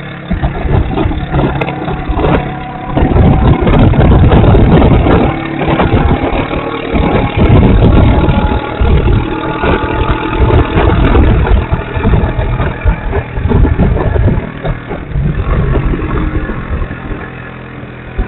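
Motorcycle engine running under way, with wind rushing over the bike-mounted camera's microphone. It grows louder a few seconds in as the bike picks up speed and eases off near the end.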